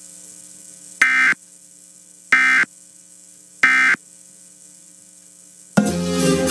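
Emergency Alert System SAME end-of-message data bursts: three short identical digital bursts about a second apart, marking the end of the EAS test. A faint steady hum lies between them, and music starts near the end.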